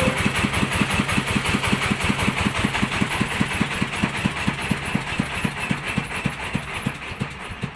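Rice huller's engine chugging with a steady beat that slowly spreads out and fades as the machine is shut off and runs down.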